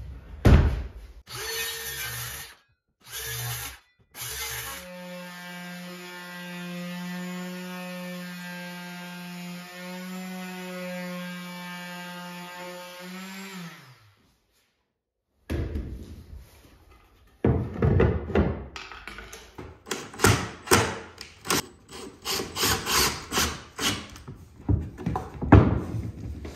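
Woodworking sounds. A few wooden thunks open the stretch. An electric power tool then runs at a steady pitch for about nine seconds and winds down with a falling pitch. After a short gap comes a quick run of wooden knocks and clatter.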